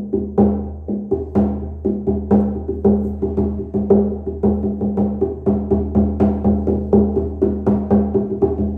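Single-headed Lakota frame drum beaten in a steady rhythm, about two strokes a second and growing denser toward the end. Each stroke rings on a clear, high-pitched tone.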